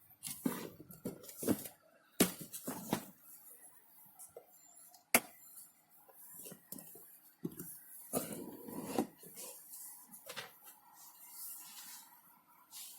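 Small hard tools and parts being handled on a workbench: scattered sharp clicks, taps and light clinks, with a short spell of busier rattling and handling noise about eight seconds in.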